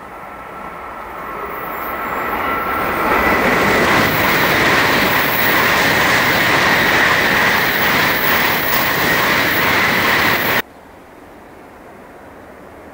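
N700-series Shinkansen train passing through the station: a rushing noise that builds over about four seconds, then holds loud with a steady high whine. It cuts off abruptly about two-thirds of the way in, leaving a much quieter steady background noise.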